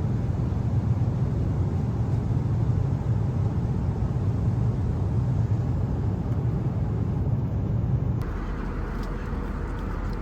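Steady low rumble of a moving vehicle. About eight seconds in it changes to a lighter, hissier noise.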